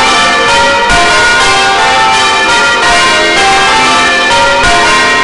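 A ring of church bells, including a 17 cwt tenor, swinging and being rung close up, loud. The strikes come in quick succession, each bell's tone ringing on over the next.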